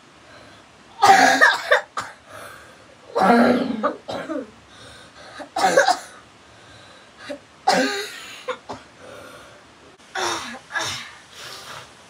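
A boy coughing, about six loud coughs roughly every two seconds: the cough of a child sick with a fever.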